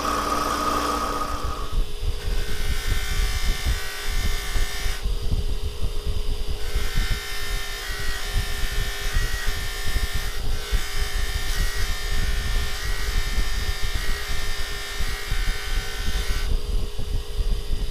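A bench-motor-driven wheel spins steadily while a hand-held steel shaper part is worked against it, giving a steady motor hum over a rough scratching. The part is eased off the wheel briefly twice. This is the wire-brushing of rust from the hammer marks ahead of polishing.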